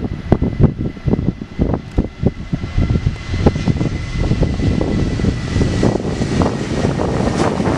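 Jet engines of a Jet2 Boeing 737 running at high power as it rolls fast along the runway past the listener. The roar grows steadier and louder about halfway through, with a faint steady whine that fades near the end and irregular wind buffeting on the microphone in the first half.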